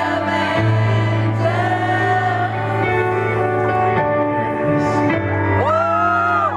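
Live band music on a stage PA: sustained keyboard chords over a low steady drone, with singing over it that becomes a held, wavering vocal line near the end.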